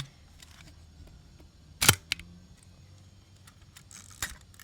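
Zenit B SLR's cloth focal-plane shutter and mirror firing once at 1/250 s: one sharp mechanical clack about two seconds in. A fainter rasp and click follow near the end.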